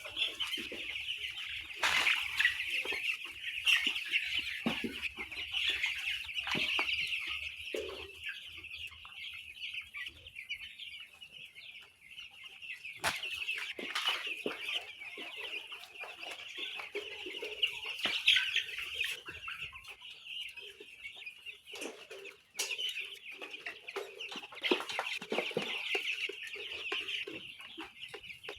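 A flock of two-week-old chicks peeping continuously, many high calls overlapping, with a few sharp knocks now and then.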